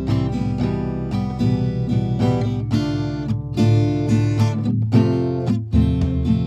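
Background music of an acoustic guitar being strummed and plucked.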